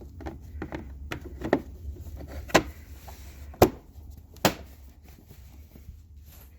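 Plastic battery cover on a Honda Metropolitan scooter being handled and set back in place: a string of light knocks and clicks, the sharpest about three and a half seconds in.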